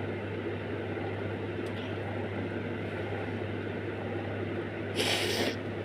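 Steady low electrical hum and background room noise, broken about five seconds in by one short, sharp sniff through a congested nose.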